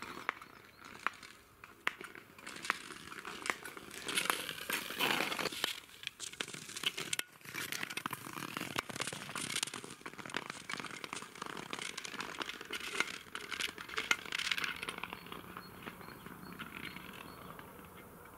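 Skates on natural ice: dense crackling and ticking from the ice and the blades over a scraping hiss, thinning out near the end.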